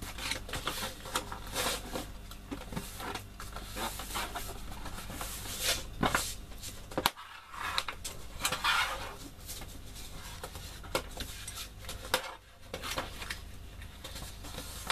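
Kraft cardstock being folded and creased by hand on a scoring board, with a plastic bone folder rubbed along the gusset folds: papery rustling, scraping strokes and light taps of card on the board.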